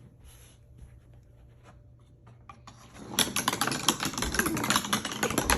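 Two marbles rattling down a homemade cardboard and popsicle-stick marble run in a race. A dense run of quick clicks starts about three seconds in.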